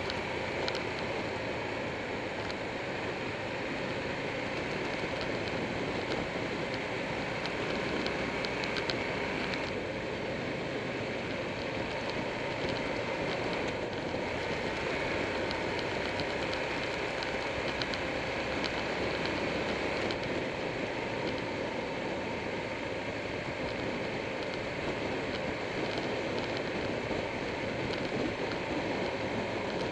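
Steady wind rush over a motorcycle-mounted camera at road speed, with the motorcycle's engine and tyre noise underneath.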